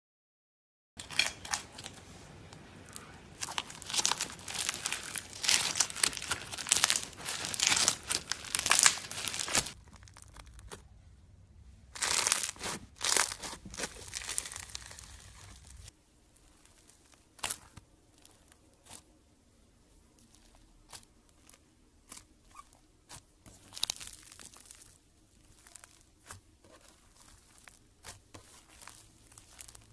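Slime being squeezed and worked by hand, making dense crackling and popping for about nine seconds, then a shorter burst, then scattered single pops and clicks.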